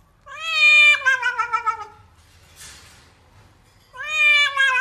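Cat yowling while being bathed: two long, drawn-out meows, each sliding down in pitch, the second starting near the end.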